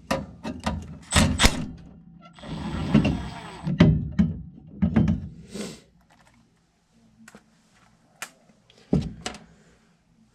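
Hand tools knocking and clanking on metal gas fittings as a water-logged part is taken off a gas line. A short hiss comes about two seconds in and lasts about a second and a half. The knocks thin out after about six seconds, with a last pair near nine seconds.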